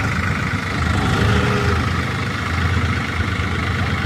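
Farm tractor diesel engines idling steadily.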